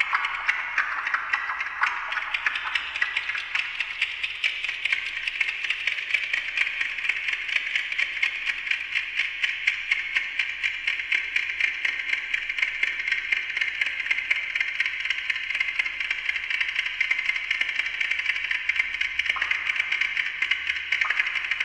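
Amplified ticking of a Westclox Silver Bell mechanical alarm clock fed through a voltage-controlled digital delay and a bank of fixed delays: a dense, rapid clatter of overlapping ticks and their delayed copies. Its tone slowly shifts as the delay time, steered by a performer's galvanic skin response sensor, changes.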